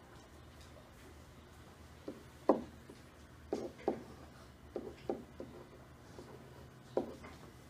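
Marker tapping and rubbing on a whiteboard as a problem is written out: a string of irregular short, soft knocks, the loudest about two and a half seconds in, over quiet room tone.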